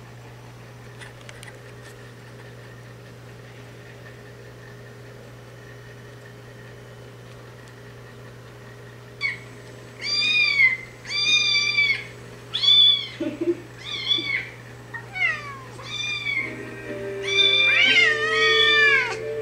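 High-pitched kitten mews playing from a kitten video, roughly one a second, after a stretch of faint steady hum. Near the end, lower, longer falling cat calls join in: the black cat's crabby response to the mewing.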